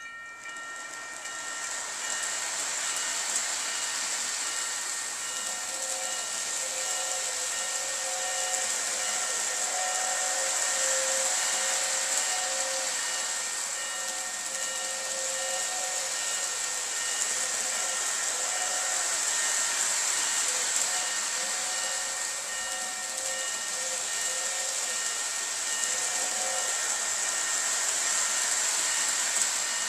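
Lionel Polar Express O gauge steam train set running round its track: a steady hiss with thin whining tones, one of them pulsing. It starts abruptly as the transformer is turned up and swells over the first couple of seconds.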